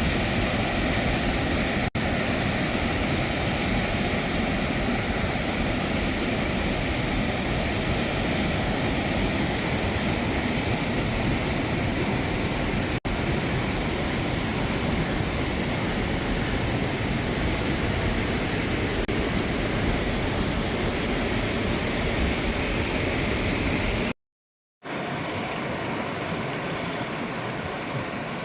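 Mountain river water rushing steadily over a small waterfall. Near the end the sound cuts out for a moment and comes back quieter.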